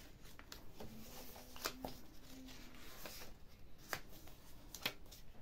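Soft paper rustling as the pages and paper tags of a handmade junk journal are handled and turned, with a few light clicks of paper and card.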